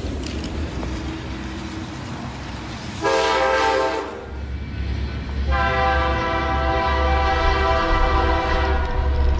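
A train horn sounds twice: a short blast about three seconds in, then a long held blast starting about five and a half seconds in, over a steady low rumble.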